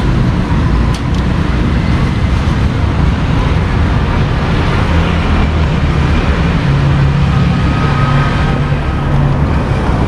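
Steady street traffic noise with a heavy low rumble. A passing vehicle's engine hum rises out of it for a couple of seconds in the latter half.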